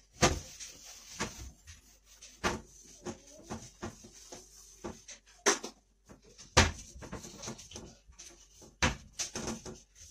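Irregular knocks and rubbing as a wooden kitchen wall cabinet is wiped down by hand with a cloth.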